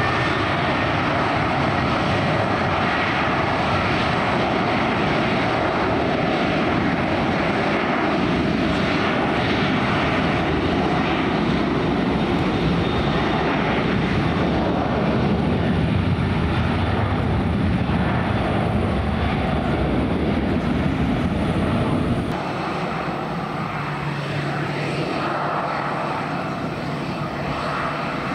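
Aircraft engines running, a loud steady roar. Near the end the sound changes abruptly and the deep rumble drops away.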